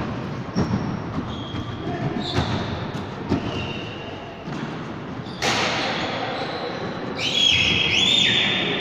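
Basketball bouncing on a wooden gym floor, with short, high sneaker squeaks as players run the court, echoing in a large hall. A louder rush of noise comes in about five and a half seconds in, and longer wavering squeaks follow near the end.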